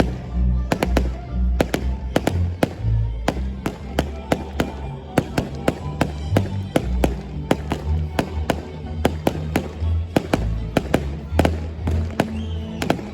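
Fireworks going off in quick, irregular cracks and bangs, several a second, over music with a deep bass line.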